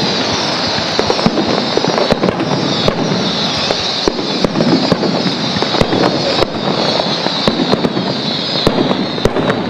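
Fireworks display going off continuously: a dense run of bangs and fast crackling over a steady hiss, with a repeated falling high whine.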